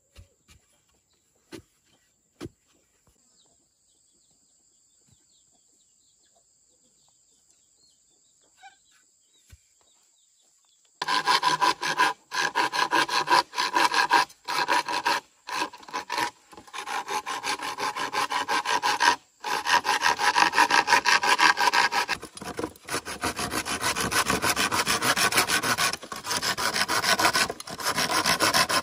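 A few light knocks, then about eleven seconds in, wood being cut or shaped with a tool starts: loud, continuous rasping broken by short pauses every second or two.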